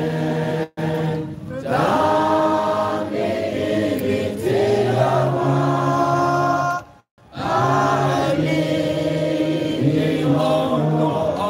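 Congregation singing a hymn together in chorus, in long held notes with no instruments standing out. The sound drops out briefly twice, under a second in and again about seven seconds in.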